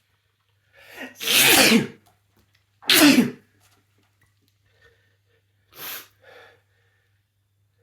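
Sneezing fit brought on by chhinkni sneezing powder: two loud sneezes about a second and a half apart, the first with a short build-up, then two fainter short sounds a few seconds later.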